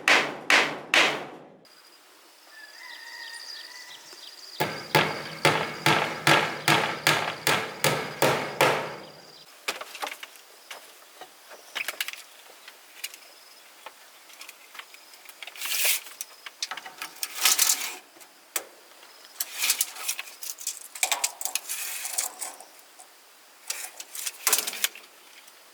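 Hammer blows on wood during log cabin wall construction: a short run of strikes at the start, then about nine evenly spaced blows at about two a second, followed by scattered knocks and scraping of wood being handled. Insects drone faintly underneath.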